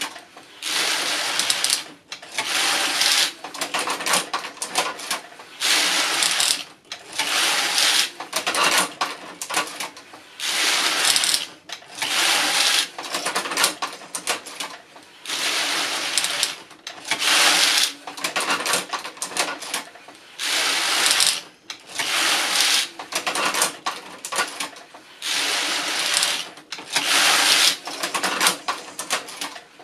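Passap E6000 knitting machine's lock pushed by hand back and forth across the needle beds, knitting row after row. The needles and pushers rattle and clack with each pass. There is a pass roughly every two seconds, with a short pause at the end of each row.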